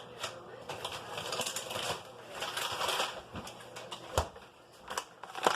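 Food packaging being handled: rustling and crinkling with many small clicks, and sharp knocks about four seconds in and again near the end.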